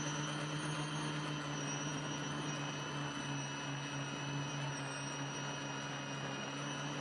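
ArduCopter quadcopter's electric motors and propellers running steadily in flight: a steady hum with higher whining tones that waver slightly in pitch.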